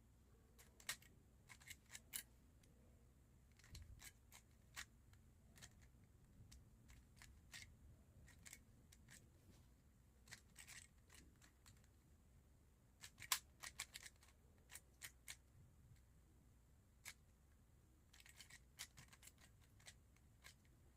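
Rubik's cube being turned by hand during a solve: quick, irregular plastic clicks of the layers snapping into place, coming in short bursts with pauses between, the loudest cluster a little past halfway.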